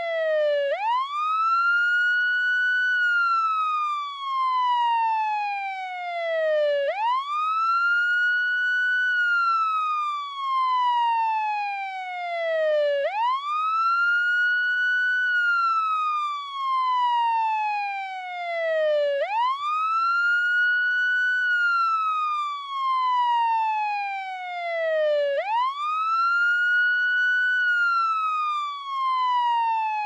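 Wail siren: a tone that rises quickly, then glides slowly back down, repeating about every six seconds, about five cycles in all.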